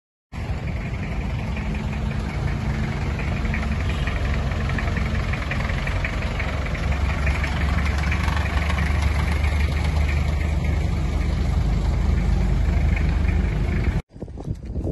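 Small pickup truck's engine running at low speed as it drives slowly past close by and pulls away, a steady rumble that grows a little stronger partway through and cuts off suddenly near the end.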